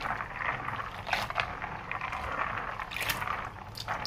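Raw peanuts being stirred by hand in water in a plastic bowl to wash them: an irregular wet sloshing with a few sharp clicks.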